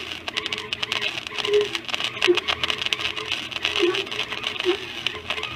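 90-amp flux-core wire welder's arc crackling steadily with dense, irregular snaps while a bead is run on a stainless steel patch.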